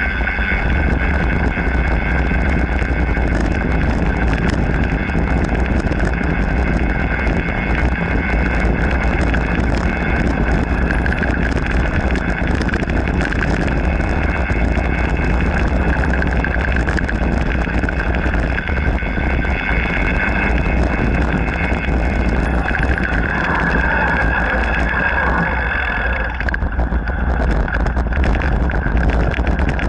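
Mountain bike rolling fast along a gravel trail: continuous tyre crunch and rumble with frequent small rattles and knocks from the bike, and wind buffeting the microphone. A steady high hum runs underneath.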